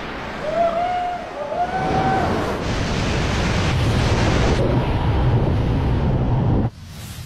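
Two short rising whoops from a spectator as a wingsuit flyer passes low overhead. Then loud rushing wind of wingsuit flight buffeting the microphone, which cuts off suddenly near the end.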